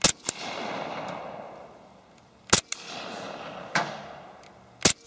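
Three suppressed pistol shots, about two and a half seconds apart, from an HK Mark 23 .45 ACP with a dry SilencerCo Osprey 45 suppressor firing subsonic 230-grain Blazer rounds. Each sharp report is followed by a short click and a fading echo.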